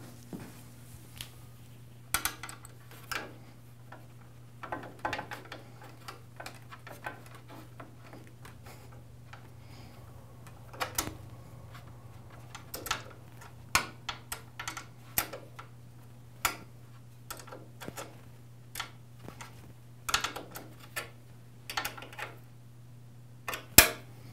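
Irregular metallic clicks and taps as a wrench turns the table-height adjustment screw on a Delta ShopMaster thickness planer, with a louder click near the end, over a steady low hum.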